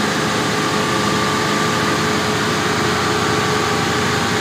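Motor cruiser's inboard engine running steadily with the boat under way, heard from inside the helm cabin as an even drone mixed with hull and water noise.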